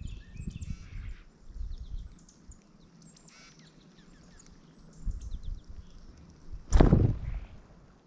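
A northern cardinal on a seed feeder right at the microphone: low bumps and rustles as it moves on the seed, then one loud flutter of wings as it flies off near the end. Faint short chirps of other birds run underneath.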